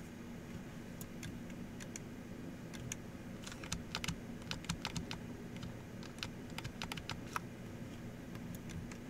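Computer keyboard keys clicking in scattered, irregular keystrokes, most of them bunched in the middle few seconds, over a faint steady low hum.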